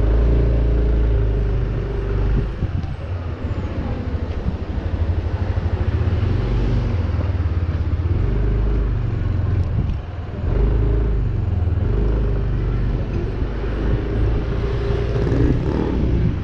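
Yamaha NMAX 155 scooter's single-cylinder engine running at low speed as the scooter idles and then pulls away, with a steady low drone and a brief dip about ten seconds in.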